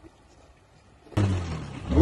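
Quiet for about the first second, then a sudden cut to a motorcycle engine running loudly with a steady low hum, over a rushing noise.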